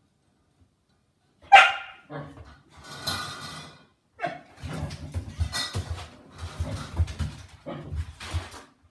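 Nova Scotia Duck Tolling Retriever barking in play: one loud bark about a second and a half in, a second bark, then a run of low, choppy rumbling with more short yips.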